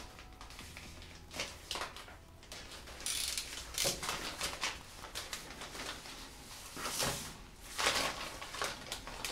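Plastic courier mailer bag being slit with a utility knife and handled, crinkling and rustling in irregular bursts, loudest about three to four seconds in and again around eight seconds.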